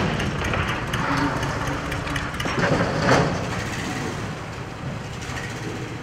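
Boat engine running with a steady low rumble, swelling in noisy surges about a second in and again around three seconds in.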